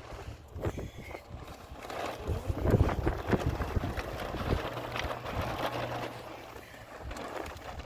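Wind buffeting the microphone: irregular low rumbling gusts with a few brief knocks.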